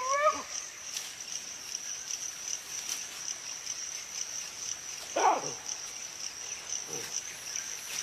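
Steady high-pitched insect chirring, with a short animal call right at the start and a louder single call about five seconds in that falls steeply in pitch.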